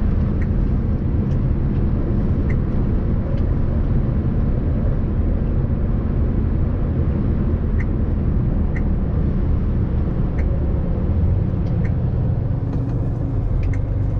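Heavy lorry driving, heard from the cab: a steady low rumble of engine and road noise, with a few faint ticks and rattles.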